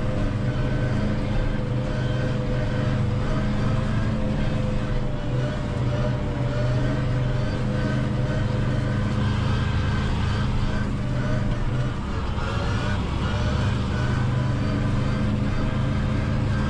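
Valtra N 121 tractor's diesel engine running steadily under load, heard from inside the cab, while it drives a Claas Corto 290 FN front drum mower through grass. The engine note wavers slightly about three-quarters of the way through.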